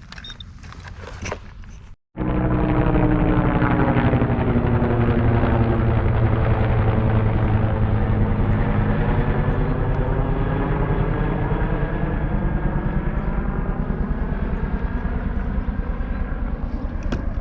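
A loud engine drone starting abruptly about two seconds in, steady with a fast regular pulse, its pitch sagging slightly through the middle and coming back up before it cuts off.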